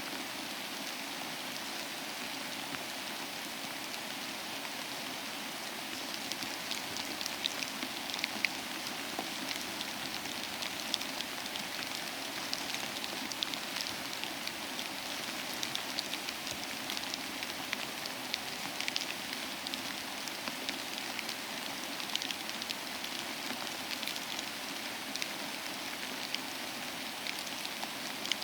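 Steady rain: an even hiss with individual drops ticking sharply, more of them from about six seconds in.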